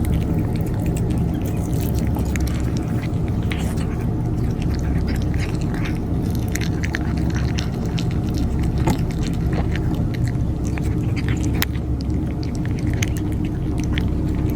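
Cats eating food set out for them, chewing with many small irregular crunching clicks over a steady low rumble.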